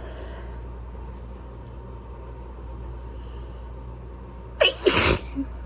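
A person with a cold sneezes once, forcefully, about four and a half seconds in, in two quick bursts, over a steady low background hum.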